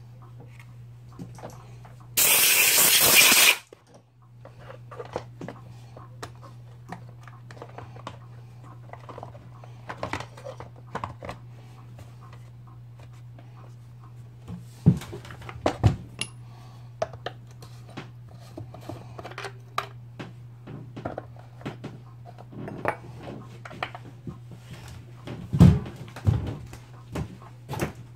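Small plastic clicks and knocks as the top cover and parts of a Stihl MS180C chainsaw are fitted back on by hand, with a few sharper knocks in the second half. A loud hiss lasting just over a second comes about two seconds in, and a steady low hum runs underneath.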